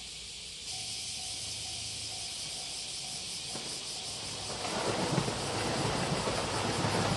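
Japanese level-crossing alarm ringing with a steady two-tone beat. From about halfway through it is drowned out by the rising rumble and rush of an approaching JR 2700 series diesel express train.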